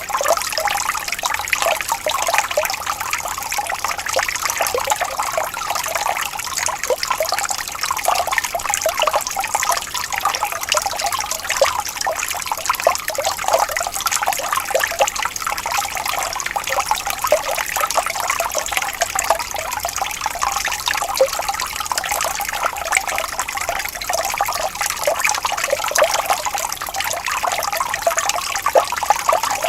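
Shallow water flowing and trickling steadily over stones, a continuous babble of small splashes.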